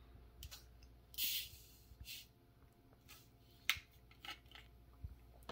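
Plastic soda bottle being twisted open: a short fizzing hiss of escaping carbonation about a second in, then a few sharp clicks from the plastic cap.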